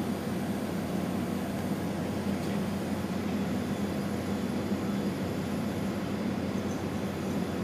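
CNC machining center face-milling an aluminum part: a steady machine hum with no breaks or changes.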